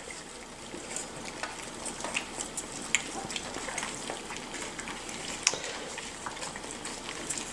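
A litter of miniature schnauzer puppies eating together from a stainless steel pan: a steady, wet crackle of lapping and chewing, dotted with small clicks, a sharper one about three seconds in and another about five and a half seconds in.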